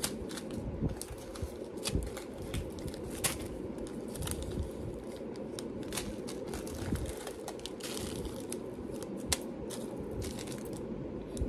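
Small plastic bags of beads crinkling and metal findings clicking as they are handled and sorted: a run of irregular sharp taps and rustles over a steady low background hum.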